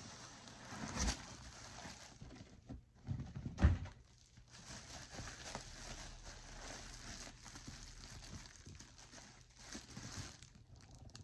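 Rustling and handling of packaging while a parcel is opened, with a couple of dull thumps, one about a second in and a louder one near four seconds in.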